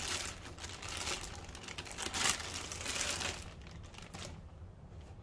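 Clear plastic bag crinkling and rustling as it is pulled off a subwoofer by hand. The rustling is loudest a little after two seconds in and dies away after about three and a half seconds.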